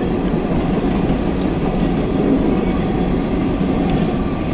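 Empty coal train's hopper cars rolling past on the rails, a steady loud rumble with a few faint clicks.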